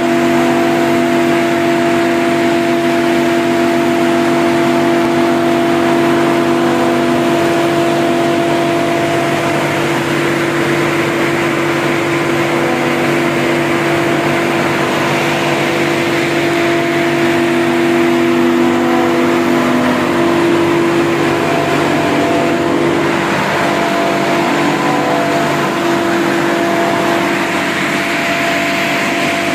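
Kulmec KE-120 portable air compressor, driven by an electric motor, running steadily with a constant, even hum.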